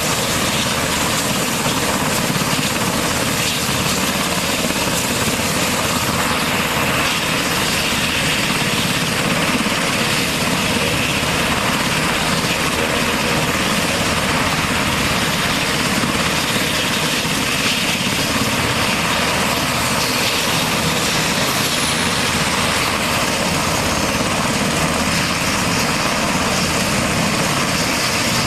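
UH-60 Black Hawk helicopter running on the ground with its main and tail rotors turning: a loud, steady mix of twin turboshaft engine whine and rotor noise.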